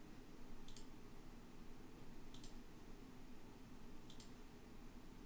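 Computer mouse button clicked three times, about every second and three quarters; each click is a quick double tick of press and release. A faint steady hum runs underneath.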